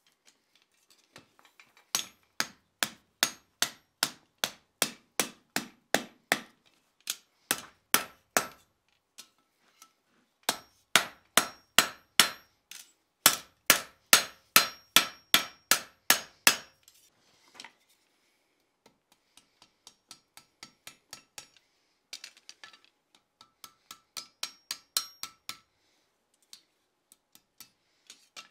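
Blacksmith's hand hammer striking hot steel bar stock on an anvil while forging a rams horn hook: steady runs of blows about two to three a second, each with a bright metallic ring, broken by short pauses. The blows turn lighter and quieter in the later part.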